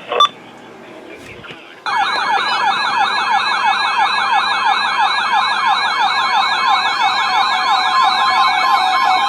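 Weather radio alert alarm sounding a siren-style warble, its pitch swinging rapidly up and down several times a second, starting about two seconds in: the receiver signalling an incoming warning.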